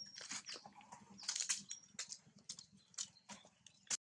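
Irregular crisp clicks and rustles of long-tailed macaques scampering and handling a mango on dry leaves and paving, with a couple of short high bird chirps.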